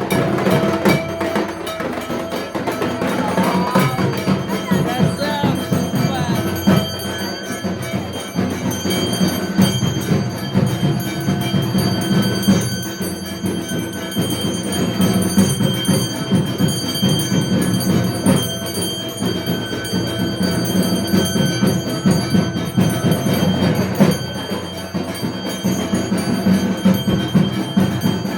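Music with ringing bells and percussion, going on steadily.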